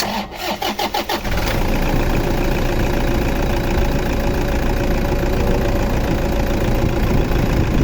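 Toyota D-4D diesel engine cranking on the starter for about a second, catching about 1.2 s in, then idling steadily, with a new timing-belt tensioner adjuster fitted to cure a knock.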